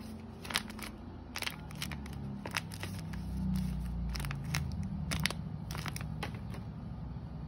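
A folded sheet of paper being unfolded and handled, crinkling and crackling in irregular snaps, over a steady low rumble.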